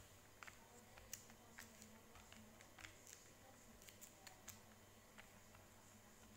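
Near silence: quiet room tone with faint, irregular small clicks and ticks, about a dozen over several seconds.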